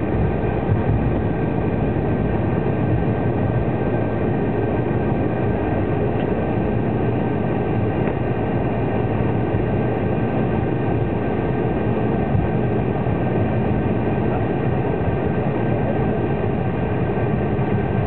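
Cabin noise of an Embraer 190 taxiing, heard from a window seat: its GE CF34 turbofans run steadily at low taxi thrust, a constant rumble with a few thin steady whines above it.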